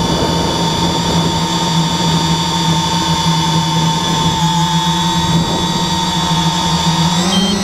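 Radio-controlled model aircraft's motor and propellers running steadily in flight, heard from the camera on board, with the pitch rising briefly near the end as the throttle changes.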